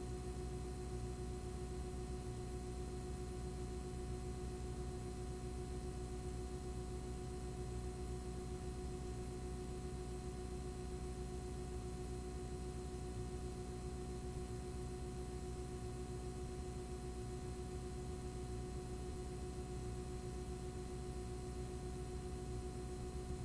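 Steady hum and hiss of a blank recording: a low hum with several fixed, unchanging tones over an even hiss, with no programme sound.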